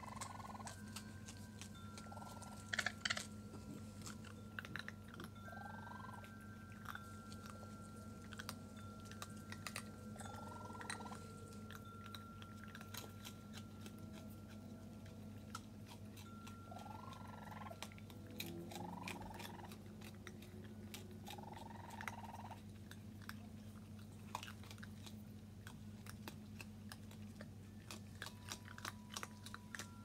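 Raccoons crunching and chewing dry pet kibble, a scatter of small crisp cracks throughout, with a short call from the kits every few seconds, over a low steady hum.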